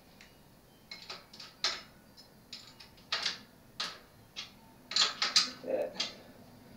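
A 15mm wrench clicking and scraping on the axle nut of a bicycle's rear wheel as the nut is snugged down, in a series of irregular metal clicks that come closer together in the second half.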